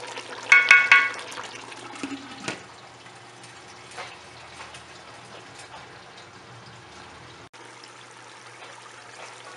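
Beef and yogurt curry simmering in a covered aluminium pot: a faint steady bubbling hiss with small pops. A brief high squeak comes about half a second in.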